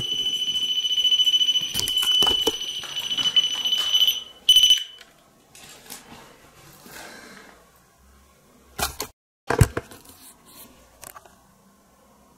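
A ghost-hunting yes/no light device gives a steady, high electronic alarm tone that cuts off sharply about four and a half seconds in. A few seconds later come two sharp knocks, a bit under a second apart.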